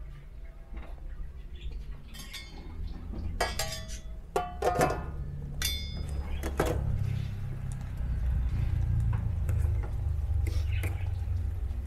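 Dishes and utensils clinking as soup is served: several sharp clinks with a brief ringing, bunched in the middle, over a steady low rumble.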